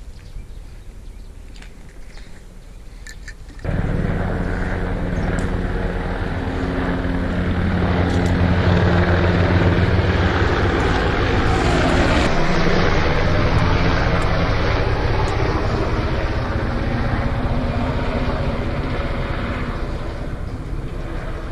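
Loud steady engine drone that starts abruptly about four seconds in and eases off slightly near the end.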